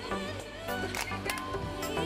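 Background music with held notes over a beat.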